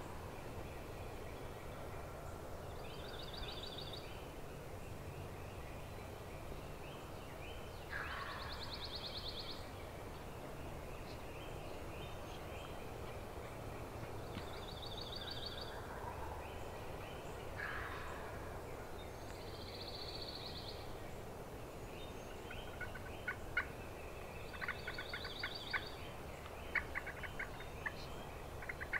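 Wild turkey gobbling repeatedly, a fast rattling gobble about every five seconds, five times. A run of short sharp notes comes in the last few seconds.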